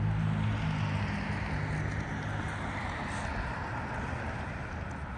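A car driving past on the street, its tyre and engine noise swelling about halfway through and then easing off, with a low steady hum that fades out in the first second or so.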